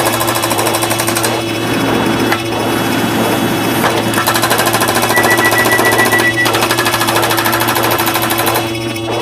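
A dense pile-up of many short sound effects layered over one another and repeating very rapidly, so that they blur into a fast, even rattle over steady droning tones; a high steady beep drops in and out.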